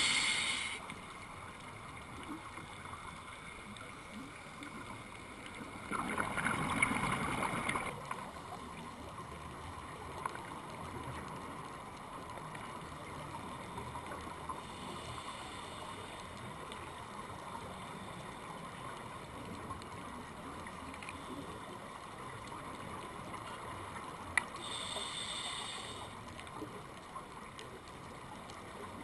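Underwater ambience heard through a camera housing: a steady hiss, broken about six seconds in by a two-second rush of scuba exhaust bubbles from the diver's regulator, with a shorter regulator hiss near twenty-five seconds in and a few faint clicks.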